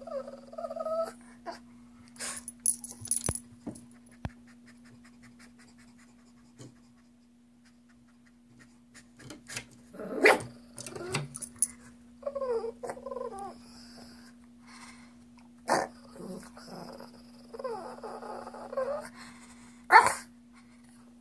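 Shih tzu making growly, alien-sounding vocalisations in several wavering bouts, begging for a treat. A few sharp knocks come between the bouts.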